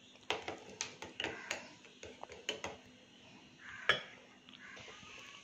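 A metal spoon clinking and tapping against a steel puttu maker as chopped nuts are spooned in: a quick run of light clinks over a couple of seconds, then one sharper clink about four seconds in.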